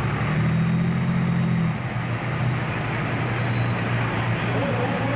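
A motor vehicle engine idling with a steady low hum. Its upper tone drops away a little under two seconds in, leaving a lower, steady drone.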